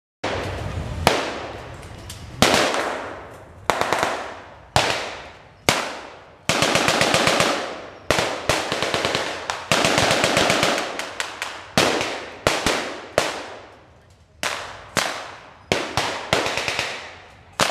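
Rifles and automatic weapons firing blanks: single shots every second or so, each trailing off in a long echo, with two rapid bursts of automatic fire about seven and ten seconds in.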